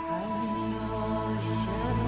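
Background music of slow, sustained tones in a calm new-age style, with a deep bass note entering shortly after the start.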